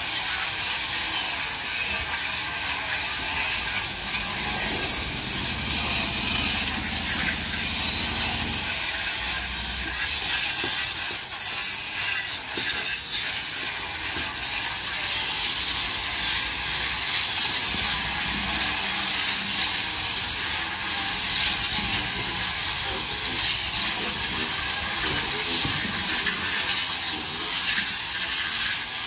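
Several hand-held power grinders sanding the old resin coating off a wooden boat's hull: a steady, hissy grinding.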